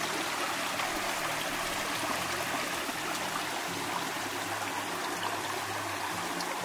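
Mountain stream flowing steadily, a constant rush and trickle of water.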